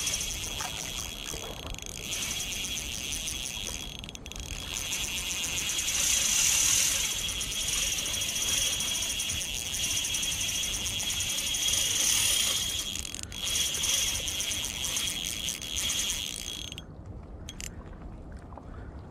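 Shimano Stradic CI4 1000 spinning reel's drag buzzing as a hooked golden trevally pulls line off the spool. The fast clicking swells and fades with the fish's runs and cuts off about three seconds before the end.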